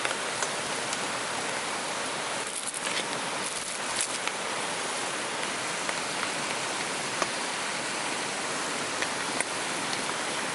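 Heavy rain falling steadily, with a few louder single drops landing close by.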